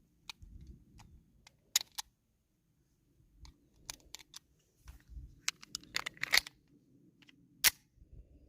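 Metal clicks and light knocks from a Beretta 92FS Compact pistol being handled: a scattered series of sharp clicks, several close together past the middle and one loud click near the end.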